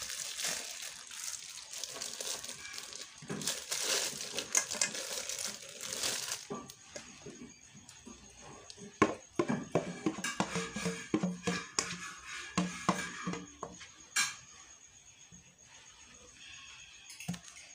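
A steady hiss for about the first six seconds, then scattered clinks and knocks of a spoon against a stainless steel bowl and aluminium cake cups as batter is spooned out, with faint music behind.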